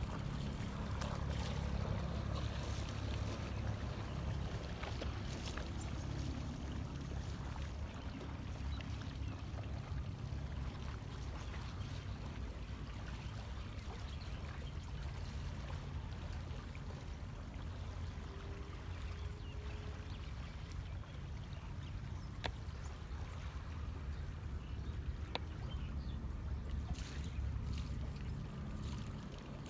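Boat engine running with a steady low hum, with water splashing and trickling over it.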